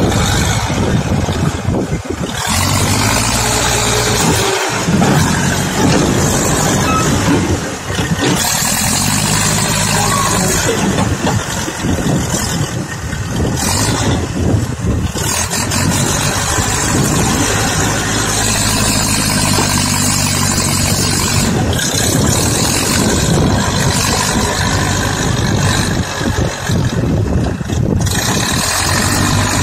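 Terex backhoe loader's diesel engine running, revving up and easing off several times as it scoops soil and raises the loaded front bucket to tip it into a tractor trolley.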